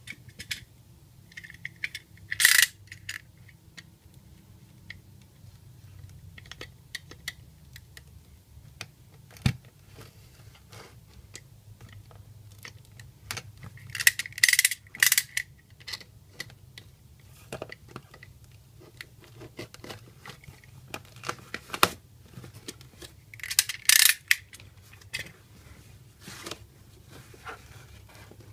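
Cardboard parcel being opened by hand: packing tape slit with a snap-off utility knife and torn, with cardboard handling clicks and a knock. Three loud bursts of ripping stand out, about two and a half seconds in, around fourteen to fifteen seconds in, and around twenty-four seconds in.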